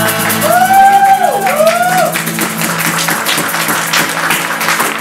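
Acoustic guitars ringing on a held final chord with a singer's closing run gliding up and down twice over it, then the band breaking into clapping and whoops as the song ends about halfway through.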